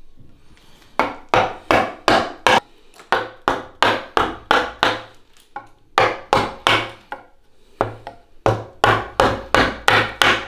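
Round wooden mallet striking the handle of a wood-carving chisel as it cuts into the end grain of a wooden post. The knocks come in quick runs of about three a second, broken by short pauses.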